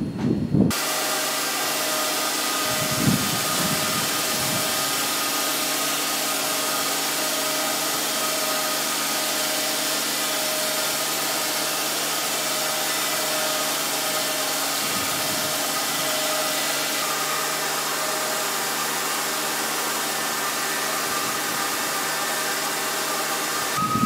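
Sawmill machinery running steadily: an even hiss with a steady hum and a faint whine, starting abruptly about a second in. A low rumble rises briefly twice.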